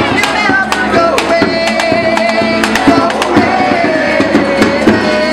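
Live band music: a man sings long held notes over a strummed acoustic guitar, the strokes coming in a steady rhythm.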